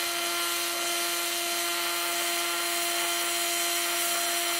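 MIG welding arc on aluminium sheet, with aluminium wire under pure argon: a steady hiss with an even buzz at one fixed pitch, burning without a break.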